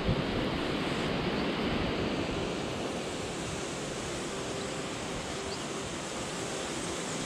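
Steady wind outdoors: an even rushing noise with no sharp events.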